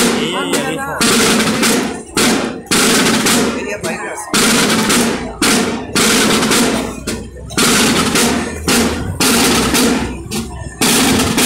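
A group of side drums (snare drums) playing together in rolls and short rhythmic phrases, each lasting about half a second to a second with brief breaks between.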